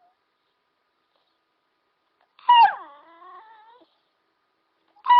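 A puppy's single high howling cry about halfway through, starting loud and falling in pitch, then trailing off into a fainter wavering whine. Another cry begins right at the end.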